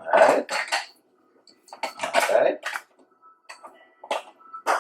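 Kitchen utensils and dishes clattering and clinking as they are handled, in a couple of short clusters, with a few sharp clicks near the end.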